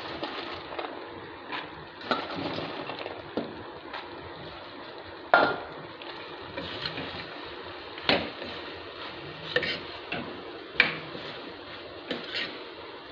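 A steel spoon stirring popcorn through bubbling chocolate syrup and butter in a nonstick pan, scraping and clinking irregularly against the pan, with a few sharper knocks, the loudest about five seconds in, over a soft, steady sizzle.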